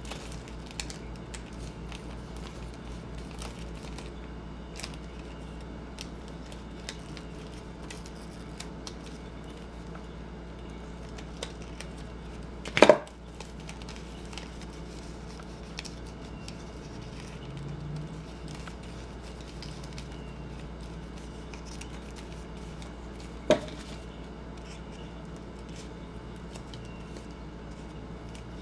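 Small snips and paper rustles of scissors cutting a folded paper doily, over a steady low hum. About 13 seconds in the scissors are set down on the table with a loud clack, and a smaller knock comes near 24 seconds.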